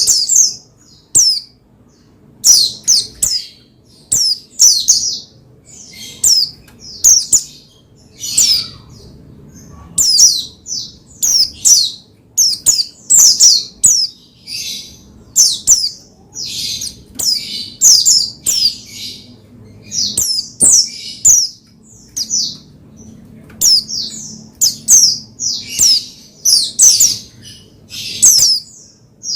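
White-eye (pleci) singing a fast, agitated string of sharp, high chirps and quick falling notes, in tight runs with short gaps, the kind of song played to stir a caged white-eye into singing.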